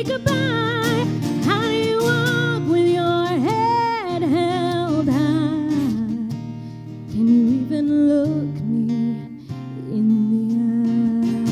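A woman sings with vibrato into a microphone over a strummed acoustic guitar. The song softens a little past the middle, then the voice comes back on a held note.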